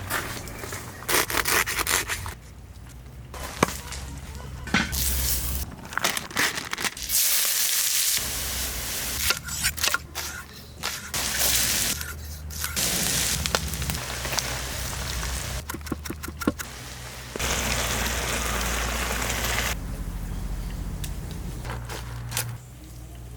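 Quick cuts of cooking sounds: ground beef sizzling in lard in a pan over a fire, in stretches of loud hiss, broken by the scrape of a spoon in the pan and sharp clicks and knocks.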